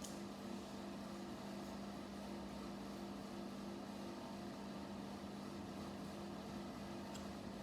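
Steady low background hum, with one faint click near the end.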